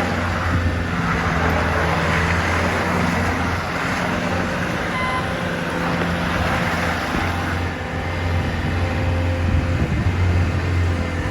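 2016 Bobcat T550 track loader's four-cylinder diesel engine running steadily, with a constant low engine note and a mechanical clatter over it. The engine note dips briefly a little before the end.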